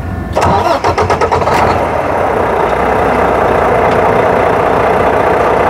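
Diesel engine of a 2016 Volvo 780 semi-truck starting: it comes in suddenly with a rapid stutter of firing pulses for about a second, then settles into a steady run.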